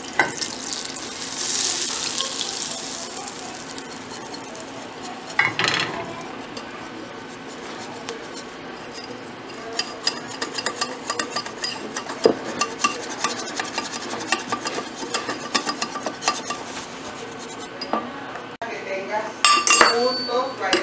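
Wire whisk beating oat pancake batter in a bowl, its wires clicking against the sides in quick, irregular taps. A brief hiss near the start.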